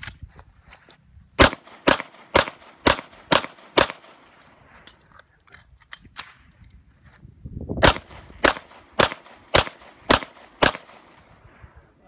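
Pistol fired in two strings of six shots, each string at about two shots a second, with about four seconds between the strings.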